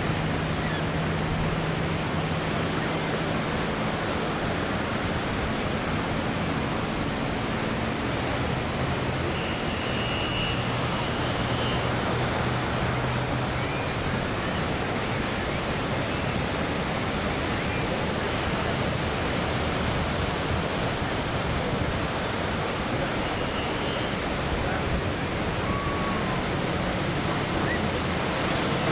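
Faint low drone of a distant P-51D Mustang's Packard Merlin V-12 engine, shifting pitch now and then, under a steady rushing noise.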